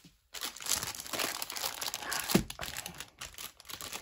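Bubble wrap and plastic packaging crinkling in quick, irregular bursts as albums are unwrapped by hand, starting a moment in and loudest a little past the middle.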